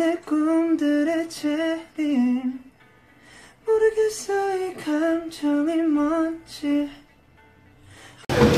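A young man singing softly without accompaniment in two phrases, pausing for about a second between them.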